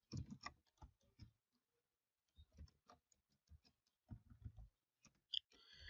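Faint keystrokes on a computer keyboard, in short irregular clusters with pauses between them.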